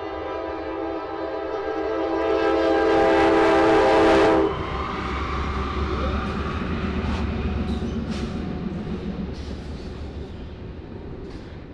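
Diesel freight locomotive horn sounding one long blast that grows louder and cuts off sharply about four and a half seconds in, then the passing train's low engine rumble with a few sharp wheel clicks, slowly fading.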